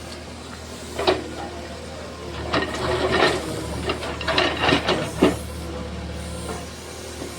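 JCB backhoe loader's diesel engine running steadily while the bucket breaks into an earthen wall, with crunching and scraping of soil and debris once about a second in and in a cluster from about two and a half to five seconds.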